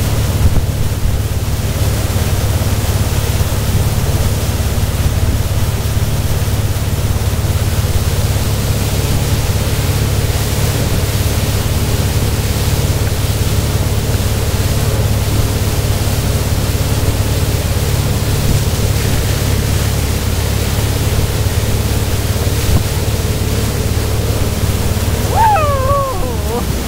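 Towboat engine running steadily at speed under wind on the microphone and the rush of the boat's wake. Near the end a voice calls out briefly and the engine note drops.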